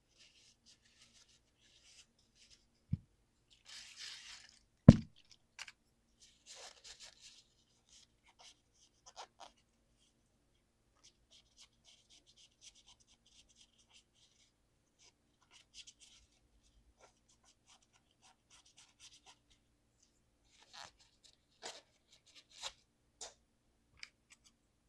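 Scrubbing and rubbing strokes of a small device being cleaned by hand, in short bursts, with two sharp knocks about three and five seconds in (the second the loudest) and a few light clicks near the end.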